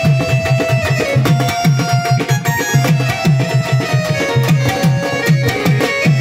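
Instrumental passage of Marathi waghya-murali folk music: a hand drum keeps a steady beat of low strokes that slide down in pitch, under a held melody line.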